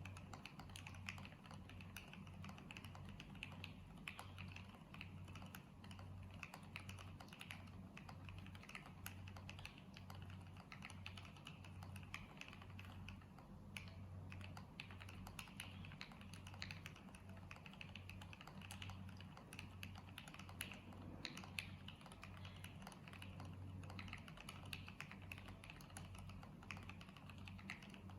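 Continuous typing on a custom mechanical keyboard with lubed Gateron Yellow linear switches on 35 g springs, PBT keycaps, an FR4 plate and EVA foam dampening: a steady, dense stream of keystroke clacks, with a low hum underneath.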